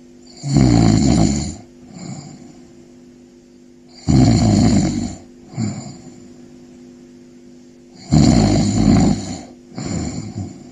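Slow, regular snoring: three loud snores about four seconds apart, each followed by a shorter, softer breath out, over a faint steady hum.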